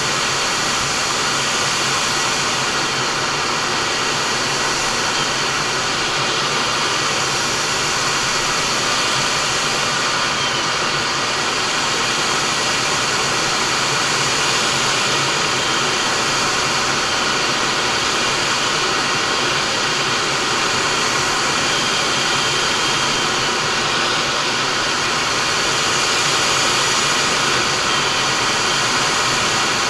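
Steady in-flight cockpit noise of a MiG-29 fighter: its twin Klimov RD-33 turbofans and the rushing airflow make a loud, even hiss with a few faint steady tones inside.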